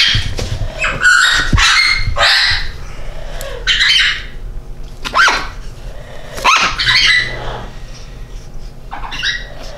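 A restrained parrot squawking in protest, a series of about six loud, harsh calls, as its overgrown beak is being trimmed, growing quieter in the last few seconds.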